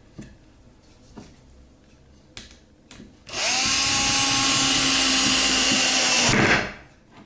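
A few light knocks of wooden parts being handled, then a power drill driving a screw into the wooden bat box. The drill spins up quickly and runs steadily for about three seconds before stopping.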